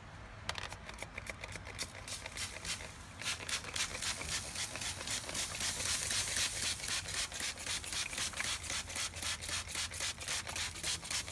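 Trigger spray bottle spritzing apple juice onto a brisket: a long run of quick hissing squirts, about three a second, louder from about three seconds in.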